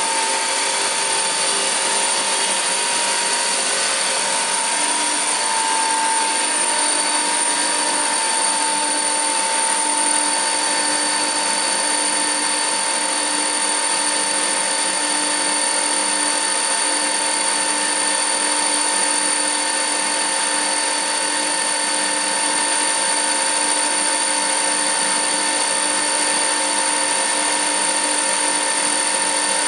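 Weinig Profimat 22N four-sided planer-moulder running steadily, its cutter spindles spinning with a steady high whine.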